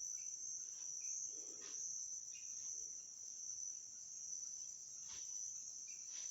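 Insects chirring steadily at a high pitch, with a few soft clicks and short faint chirps over it.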